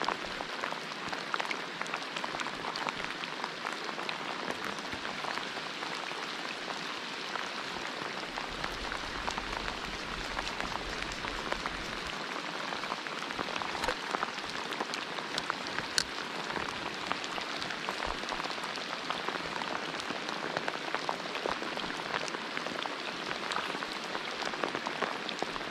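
Steady rain falling, with a dense spatter of small drop impacts close to the microphone.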